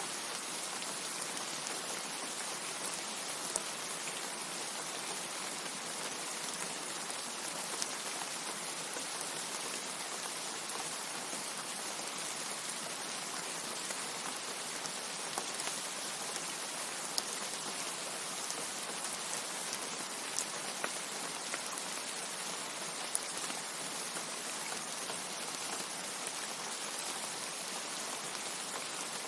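Steady rain falling: a dense, even hiss with scattered sharper drop ticks here and there.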